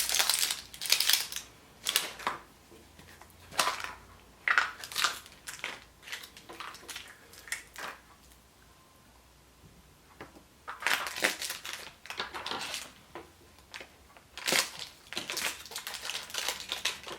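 Chupa Chups surprise egg's wrapper crinkling and crackling in bursts with short pauses as the egg is unwrapped by hand.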